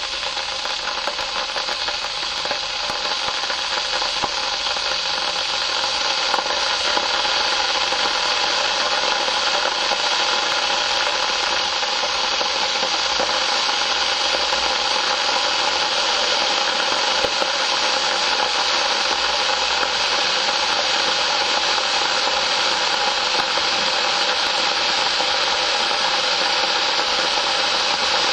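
Kettle heating water, a steady rushing hiss of water coming toward the boil. It grows louder over the first several seconds, then holds steady without whistling.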